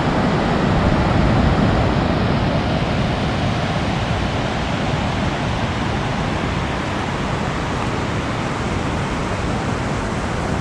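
Steady rush of flowing river water on the Lower Kern River: an even, unbroken hiss with no distinct events.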